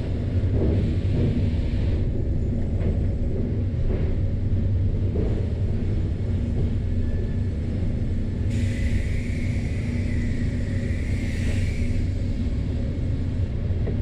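Sawmill machinery running: a steady low rumble of the conveyors and rollers, muffled by the glass-walled control booth. About eight and a half seconds in, a higher hiss joins for a few seconds.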